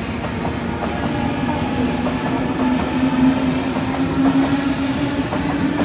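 Sydney electric suburban train running past, its traction motor whine rising steadily in pitch over the rumble of the wheels, with light clacking of wheels on the rails.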